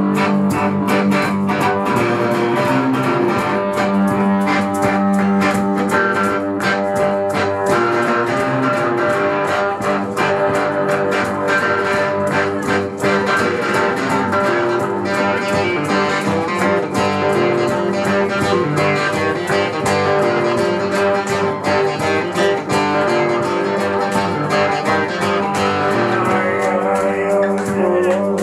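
An acoustic guitar and an electric guitar playing together, strummed and picked, with no singing.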